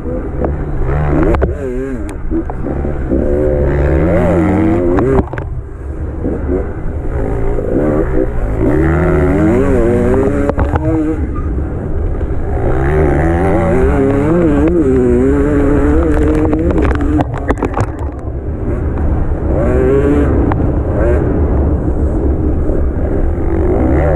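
Enduro motorcycle engine heard from on the bike, revving hard with the pitch rising and falling as the rider works the throttle through the gears, easing off briefly about five seconds in and again near eighteen seconds.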